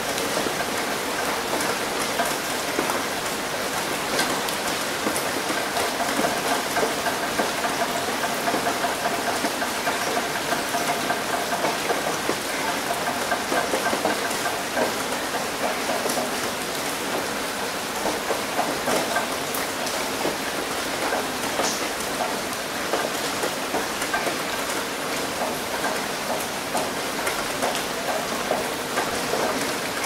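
Steady rain hitting a roof: an even hiss of countless small drop hits.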